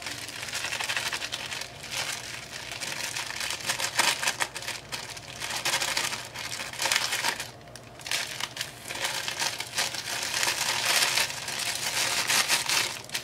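Thin plastic packet crinkling as hands squeeze and shake powder out of it: irregular rustling and crackling, with a short lull a little past halfway.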